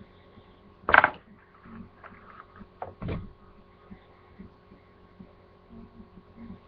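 A steady electrical hum with a sharp clatter about a second in and a duller knock about three seconds in.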